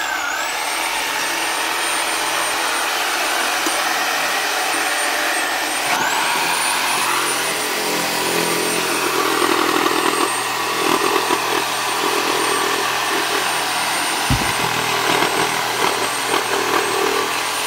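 A handheld corded electric saw runs with a steady high whine as it cuts down the backbone of a hanging beef carcass, with gritty cutting noise from the blade in bone. The whine sags briefly under load at the start and again about six seconds in. A single short low thump comes about fourteen seconds in.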